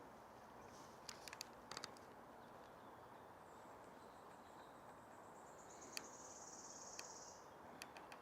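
Quiet forest near silence, with a faint, very high, rapid trill that builds from about halfway through and stops a second before the end. A few soft clicks here and there.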